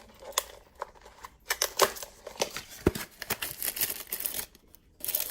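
Product packaging being handled and opened by hand, a run of sharp clicks and crinkles, then a short pause and more rustling near the end.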